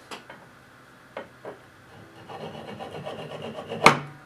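Workshop handling of metal parts: a few light knocks, then about a second and a half of scraping, ending in one sharp, loud metal clank that rings briefly.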